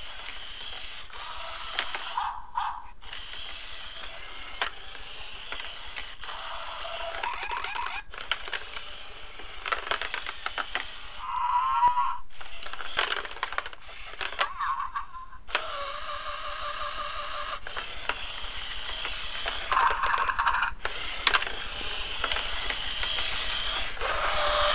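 A battery-powered Zhu Zhu Pets toy hamster running its small motor and wheels around a plastic playset, clicking and knocking against the plastic walls. A few short electronic squeaks and chirps from the toy come and go, around the middle and near the end.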